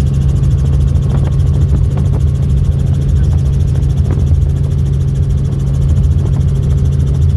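Helicopter in flight: a loud, steady drone of rotor and engine that does not change.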